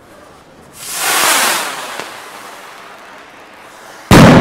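A borracho firework rocket hissing loudly as its motor fires, the rush swelling about a second in and then tailing off, followed near the end by a loud bang as it bursts.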